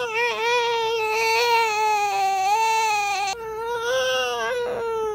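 A baby crying: one long wail of about three seconds that breaks off, then a second, shorter wail.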